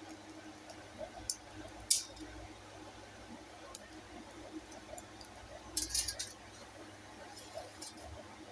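Kitchen preparation sounds: a few short sharp clinks and taps, like utensils against a bowl, the loudest about two seconds in and a quick cluster around six seconds, over a low steady hum.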